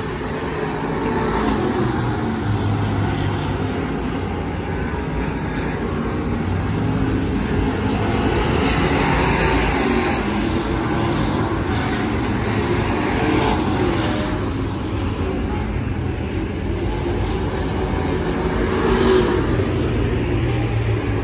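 Race car engines running on a dirt oval, heard from the grandstand, their pitch slowly rising and falling as the cars go around the track.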